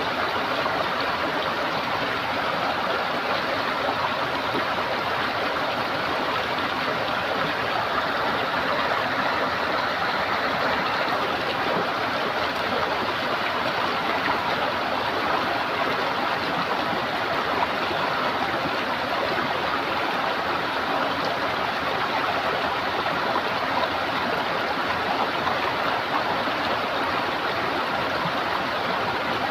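Running water gurgling steadily, with no breaks or changes in level.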